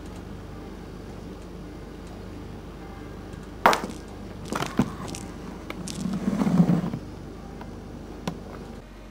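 A Maine Coon kitten's paws and a toy mouse knocking and scuffling on a wooden floor. A sharp knock comes a little after three seconds in, then a few more around five seconds, a longer scuffling rumble around six to seven seconds, and one last knock near the end, over a steady hum.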